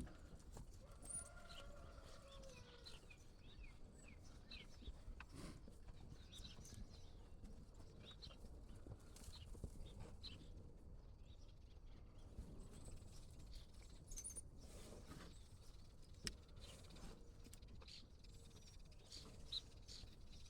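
Near silence: quiet outdoor ambience with faint scattered clicks and thin chirps.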